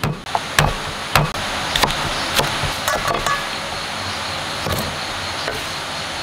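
A cleaver chopping cucumber on a wooden chopping board. There are sharp knocks about every half second for the first three seconds, then a lone softer one, over a steady background hiss.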